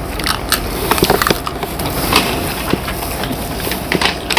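Close-up eating sounds of dahi fuchka: crisp puri shells crunching and being chewed, with spoons scraping and clicking on foil plates, in a rapid, irregular run of small cracks and clicks.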